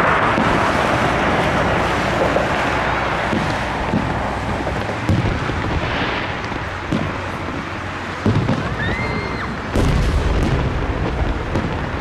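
Fireworks display going off: a continuous rumble and crackle of shells with sharp booms about five, seven, eight and ten seconds in, and a short rising whistle near the nine-second mark.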